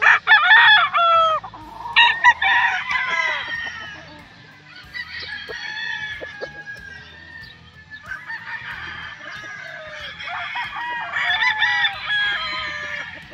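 Gamecocks crowing, several birds overlapping. The loudest crows come right at the start and about two seconds in, with more crowing around the middle and again near the end.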